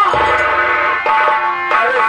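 Live folk-theatre accompaniment music: held melody notes that change about a second in and again near the end, over a quick low drum roll just after the start.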